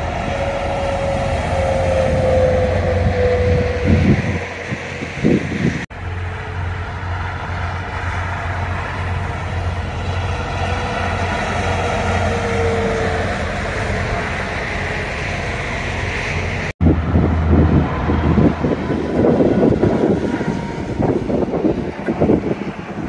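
Heavy trucks passing at highway speed, with steady tyre and engine noise. A slowly falling whine sounds as a truck goes by, once in the first few seconds and again midway. The sound cuts off sharply twice.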